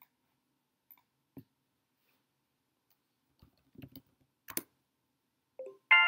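A few soft, scattered computer mouse clicks, the sharpest about four and a half seconds in. Right at the end a bright multi-tone chime starts: the custom ringtone for an incoming chat message.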